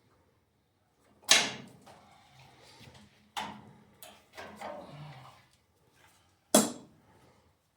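Tools knocking on the tractor's metal clutch parts during reassembly: three sharp knocks, about two and then three seconds apart, each with a short ringing tail, the first the loudest, with softer rattling between the second and third.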